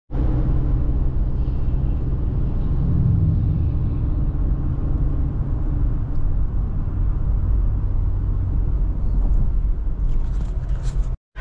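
Car driving at highway speed, heard from inside the cabin: a steady low rumble of road and engine noise that cuts off suddenly near the end.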